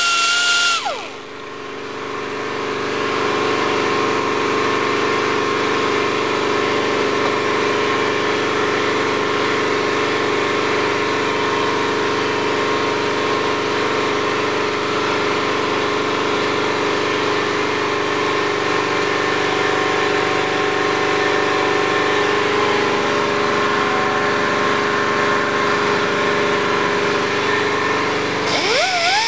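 Die grinder with a sanding disc whining at high speed, cutting off about a second in and starting again near the end. In between, a steady mechanical drone with a few fixed tones.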